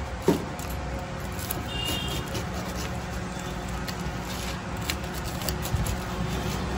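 A pizza-cutter wheel rolling through a crisp grilled sandwich, giving a few short faint crunches over a steady background hum.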